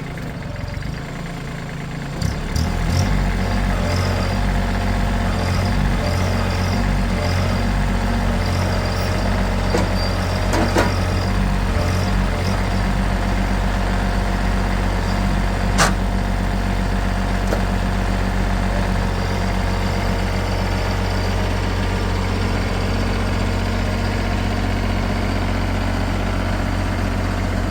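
An engine running steadily at a constant speed, getting louder and settling in about two and a half seconds in. Faint chirps come through over it in the first half, and there is one sharp tick midway.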